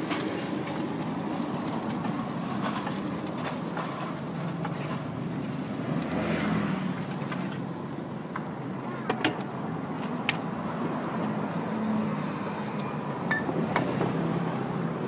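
Steady roadside street noise with road traffic running throughout, and a few sharp clicks about two-thirds of the way in.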